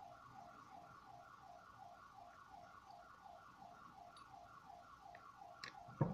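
A faint electronic alarm warbling steadily in the background, a two-tone pattern repeating about four times a second. A small sharp tap comes near the end.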